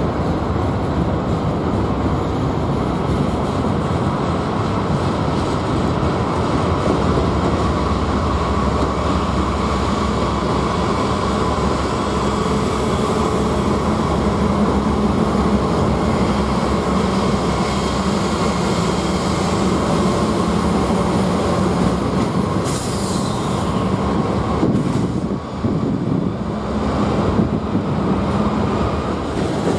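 Freight train passing close by: several Norfolk Southern diesel locomotives running, a steady low engine hum over the continuous rumble of wheels on rail.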